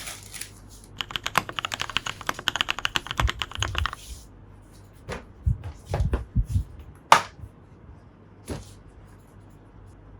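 A fast run of small clicks, like typing on a keyboard, for about three seconds, then a few scattered taps and knocks, the loudest about seven seconds in.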